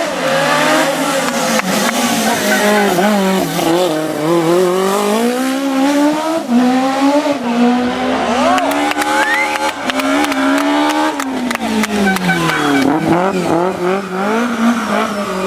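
Rally car engine driven hard, its pitch repeatedly climbing under acceleration and dropping at each gear change and braking point. A cluster of sharp cracks comes in the middle.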